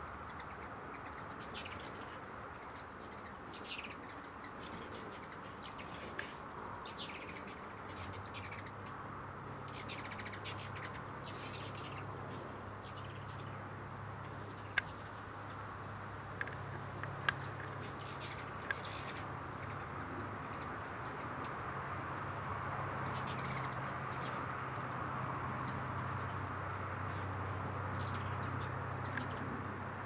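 Hummingbirds at feeders giving scattered short, sharp chips and squeaks, several in quick runs. A low steady hum comes in about a quarter of the way through and stays.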